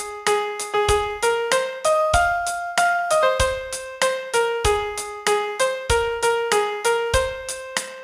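Piano playing a song melody note by note, a steady run of single struck notes moving stepwise up and down, with a low bass note about every second.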